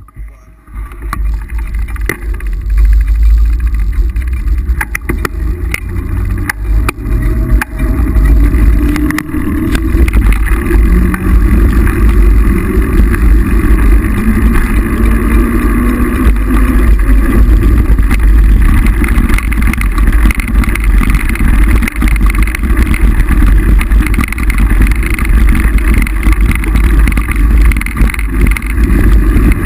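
Wind buffeting the microphone of a camera on a moving mountain bike, with rattles and knocks from the bike over rough ground through the first ten seconds or so.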